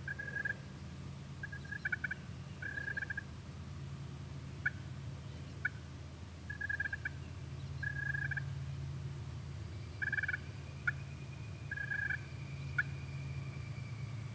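Hunter's turkey call sounding hen-style yelps and clucks: short, clear notes in loose groups of two or three, with single sharp clucks between them, over a steady low rumble.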